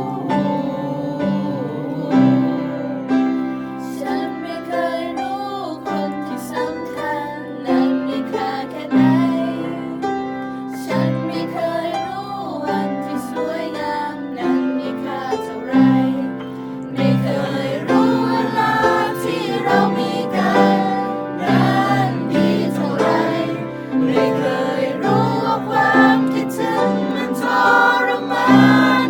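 Choir singing a slow ballad in several-part harmony, with instrumental accompaniment.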